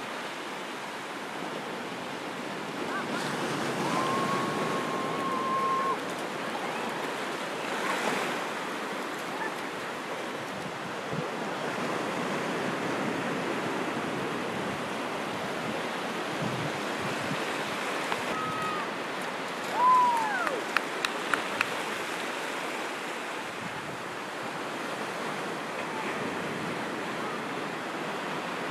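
Ocean surf washing steadily on the shore, swelling a little now and then. There are a couple of brief faint high calls and a few small clicks partway through.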